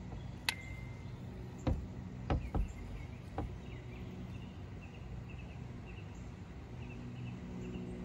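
Outdoor background: a steady low hum with faint, repeated high chirping in the second half, and a few light clicks and knocks in the first few seconds.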